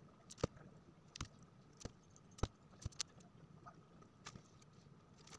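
Faint, irregular small clicks and taps as coil varnish is dabbed from a bottle onto a fan motor's copper stator windings, about ten in all.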